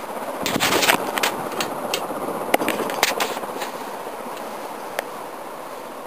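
Ceiling fan running with a steady whir. Over it comes a cluster of sharp clicks and crackles from about half a second to three and a half seconds in, and a single click at about five seconds.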